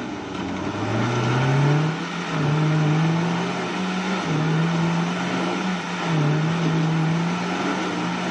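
Off-road 4x4's engine revving under load as it crawls forward over rocks. Its pitch steps up about a second in, then holds with small rises and dips as the throttle is worked.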